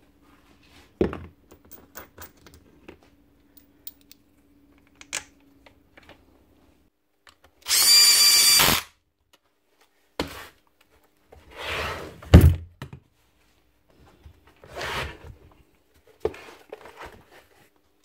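A power drill-driver runs at speed for about a second, running down the nuts that hold the barrel housing onto a Bosch GSH 11 E hammer's body. Around it are clunks and knocks of metal parts being handled, a sharp knock about a second in and a heavy thud near twelve seconds.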